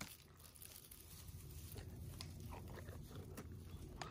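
Faint rustling and light crackling of artificial Christmas tree branches as a cat clambers among them.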